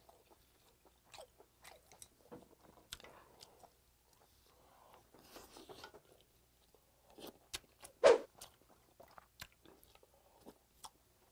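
Close-miked chewing and mouth sounds of a person eating pork-bone soup: scattered wet smacks and clicks, with one louder short sound about eight seconds in.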